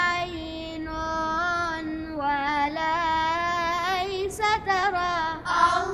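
A girl's voice singing solo, a slow melodic line of held notes with a wavering vibrato and sliding ornaments, with short breaks for breath.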